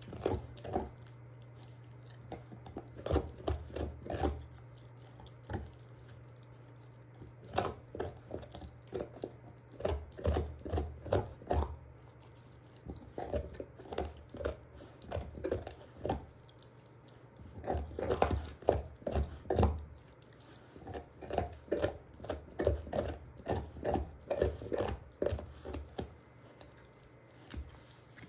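German shorthaired pointer chewing a beef bone: runs of sharp crunching bites, a few each second, broken by short pauses.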